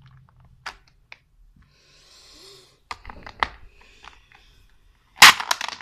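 Small plastic clicks as mini Beyblade tops are fitted to their launchers, then, near the end, a fast zipping rattle as the toothed ripcords are pulled and the two tops are launched into a plastic stadium.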